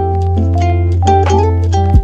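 Background music: a melody of short plucked notes over a held low bass note, with a deep drum hit near the end.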